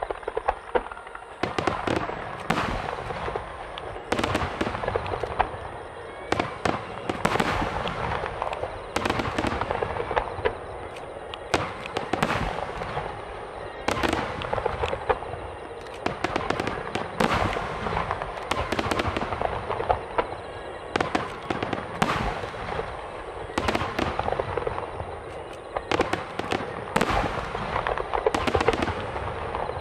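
Aerial fireworks bursting in rapid succession: many sharp bangs a few per second over dense continuous crackling, starting just at the beginning.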